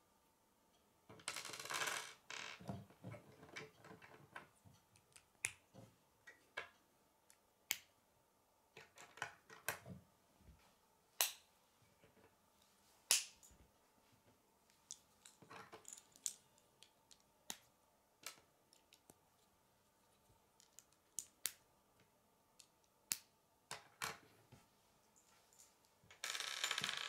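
Plastic K'nex pieces clicking as connectors are snapped onto rods and set down on a wooden table: scattered sharp clicks at an irregular pace, with a brief rustle of pieces about a second in and again near the end.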